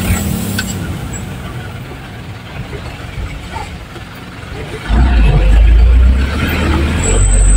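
Truck engine and cab noise heard from inside the cab on a rough dirt road. The rumble eases for a few seconds, then about five seconds in the engine comes back on hard with a loud, deep drone. A short high squeal sounds near the end.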